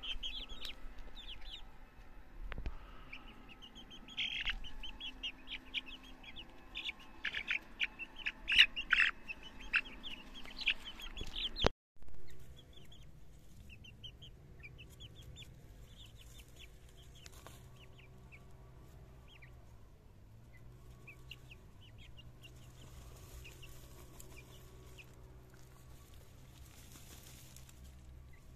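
Young Amrock chickens peeping in many short, high calls while one is held and stroked, loudest near the middle of the first half. The calls break off abruptly after about twelve seconds. Only faint chirps, a steady low hum and, later, a soft rustle of chickens scratching in dry ground remain.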